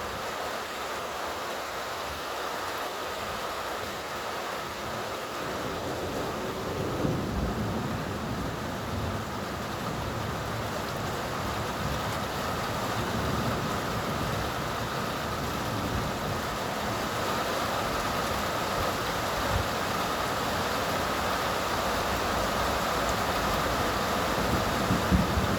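Steady summer rain with a low rumble that comes in about six seconds in and carries on.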